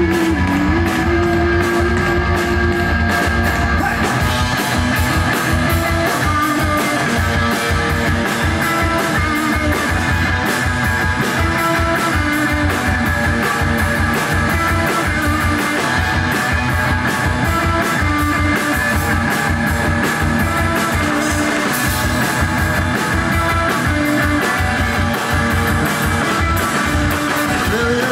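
Live rock band playing: electric guitar over a drum kit keeping a fast, steady beat, with some singing.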